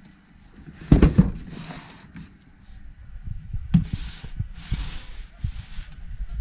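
A large cardboard box is set down on a wooden desk with a thump about a second in, then slid and handled, with the cardboard scraping and rustling against the desktop and hands.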